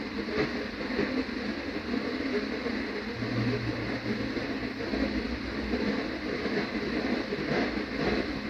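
Metal ball rolling round the curved orbit surface of a gravity demonstration machine, a steady rolling rumble.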